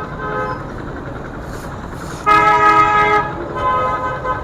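A vehicle horn toots: a faint toot at the start, a loud toot held for about a second in the middle, then a shorter, weaker one. Under it a steady low engine rumble runs.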